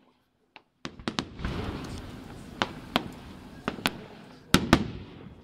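Fireworks display: aerial shells bursting with about ten sharp bangs, the loudest two close together near the end. Between them runs a continuous rushing wash of sound that fades out near the end.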